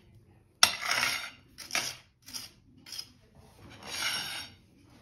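A knife and a china plate clinking and scraping on a marble worktop: a sharp knock about half a second in, then a few short scrapes, the longest near the end.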